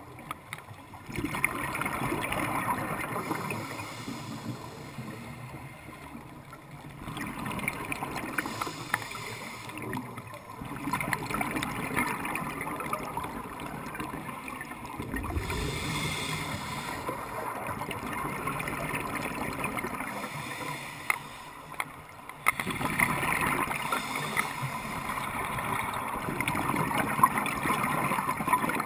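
A scuba diver breathing through a regulator underwater, heard through a camera housing: exhaled bubbles make noisy bubbling stretches of a few seconds each, with short quieter breaks between breaths.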